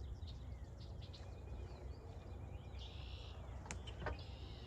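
Birds chirping over a low, steady rumble, with a single sharp click about three-quarters of the way through.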